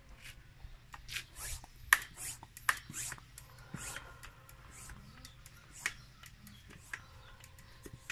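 Rapid sharp clicks and rustling from handling a homemade PVC multi-pump airgun, with the sharpest click about two seconds in.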